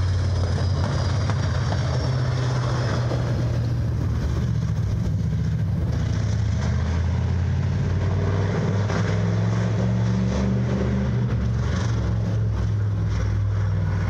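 Dirt late-model race car's engine running steadily as it laps a dirt oval: a constant low drone with only small changes in pitch.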